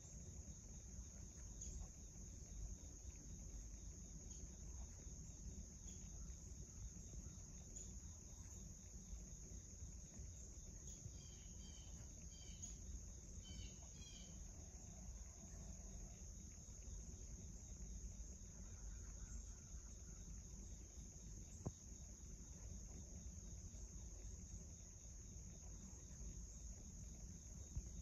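Faint, steady high-pitched insect trilling, with a few short bird chirps about halfway through and a single soft click near the end.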